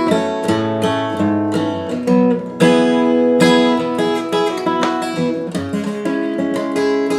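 Background music: acoustic guitar playing, plucked and strummed chords.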